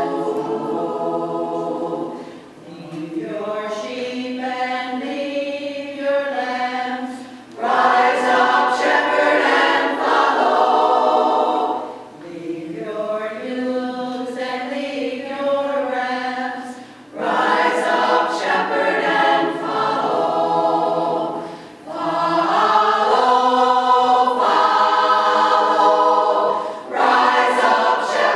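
Women's choir singing in harmony, in phrases of a few seconds with short breaks between, some passages softer and some fuller.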